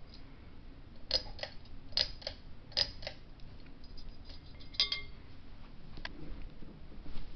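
Hampton Bay Southwind VI ceiling fan running on medium speed with a faint low hum, over which come irregular light metallic clicks and ticks, about eight of them in the first five seconds.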